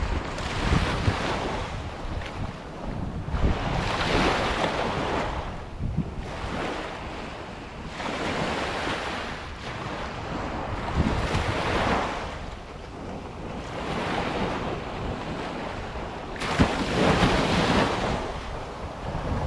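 Small waves breaking and washing up a sand beach, the surf rising and falling every three to four seconds, the largest wash near the end. Wind buffets the microphone throughout.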